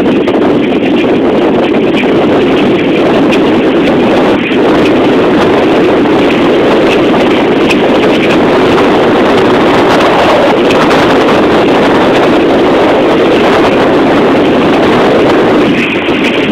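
Steady, loud noise of a moving vehicle heard from inside it: engine and road rumble mixed with wind buffeting the microphone.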